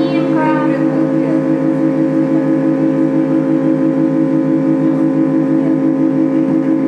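Live post-punk band holding a sustained droning chord of several steady low notes, pulsing rapidly and evenly, like an amplified tremolo.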